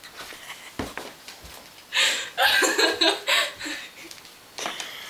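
A low thump about a second in, then a loud, choppy burst of laughter lasting a second or two.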